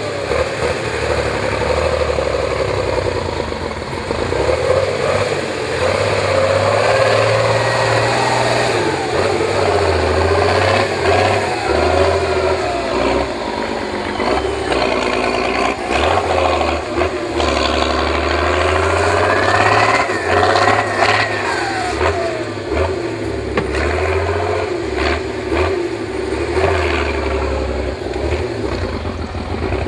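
Praga V3S trial truck's diesel engine revving hard under heavy load as it climbs steep sand slopes, its pitch rising and falling with the throttle, with a long rising rev about two-thirds of the way through. Scattered knocks and clunks are heard in the second half.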